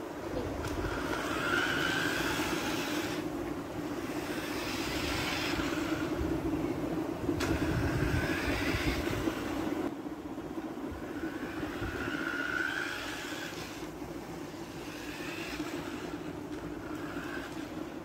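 Remote-control toy quad bike driving on a tiled floor, its small electric motor and gears whirring steadily, with a higher whine that rises and falls every few seconds as it speeds up and slows.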